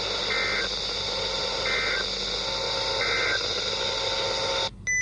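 NOAA Weather Radio EAS end-of-message data bursts over radio static: three short, screechy two-tone digital squawks about a second and a half apart. This marks the close of the weekly test. Near the end the static cuts off and a weather-radio receiver gives a short beep.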